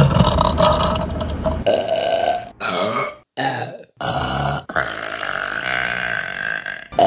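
Women burping loudly, about six burps in a row cut one straight after another; the last is the longest, drawn out for about two seconds.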